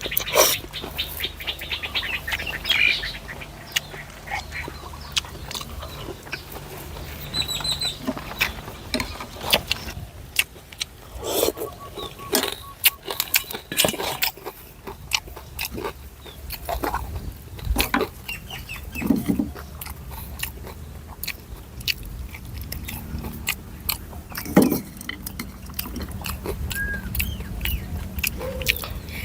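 Close-up eating sounds: mouth smacking, chewing and slurping of noodle soup, with scattered small clicks of spoon or chopsticks against the bowl.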